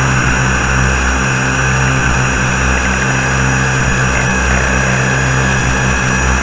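DIY synthesizers playing a loud, steady low drone, like an idling engine, with a band of hissing noise above it, put through delay, reverb and a low-pass filter.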